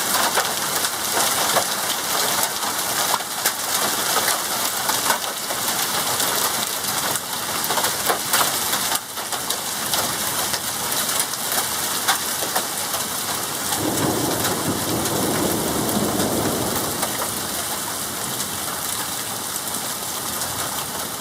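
Hailstones and heavy rain pelting hard surfaces, with a dense clatter of sharp impacts through the first half that thins to a steadier rain hiss. A low rumble of thunder comes about two-thirds of the way through.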